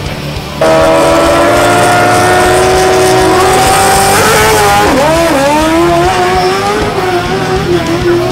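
Drag race car engine running loud at high revs, cutting in sharply about half a second in. Its pitch climbs slowly, then wavers and dips several times in the second half.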